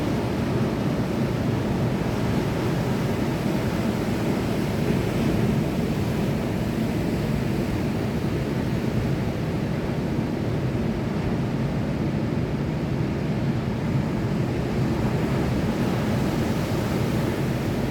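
Sea surf: a steady, even rush of waves without distinct separate breakers.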